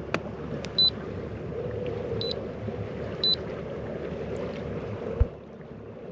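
Three short, high electronic beeps from the boat's marine electronics display as its buttons are pressed, over a steady low noise of the boat. One dull thump near the end.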